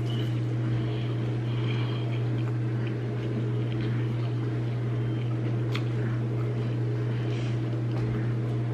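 A steady low hum, with faint chewing and mouth sounds from a person eating a burger.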